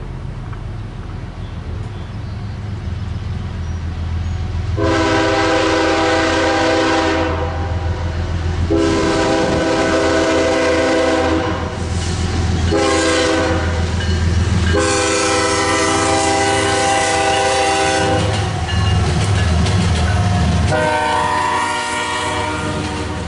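Diesel freight locomotive's air horn sounding the grade-crossing signal of long, long, short, long, over the low rumble of the approaching engines. Another long blast follows near the end as the train reaches the crossing, with the rumble and clatter of freight cars rolling by.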